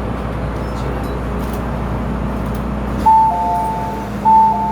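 Inside the cabin of an MTR M-train, the steady running noise and hum of the train, with a descending two-note electronic chime sounding twice about a second apart near the end.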